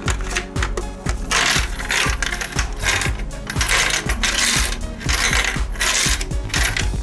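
Plastic mechanism of an Anpanman alarm clock and coin bank toy ratcheting and rattling in about six short bursts, over background music.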